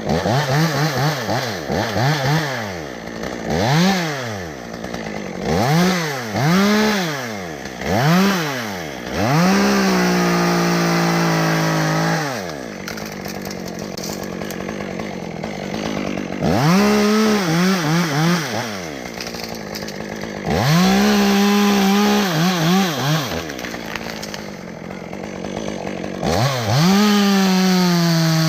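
Chainsaw revving in repeated short throttle blips, each rising and falling in pitch. About four times it is held at high revs for one to three seconds, and the pitch sags slightly while it is held, as it does under the load of a cut in wood.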